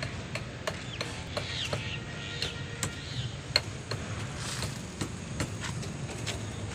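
Steady low engine hum with scattered sharp clicks and a few short high calls, like birds, in the first half.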